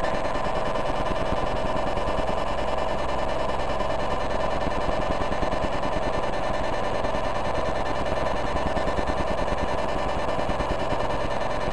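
Light pulses from several TV remote controls turned into sound by a light-to-sound device and layered together. The result is a dense, steady electronic buzz of many overlapping tones with a rapid pulsing underneath.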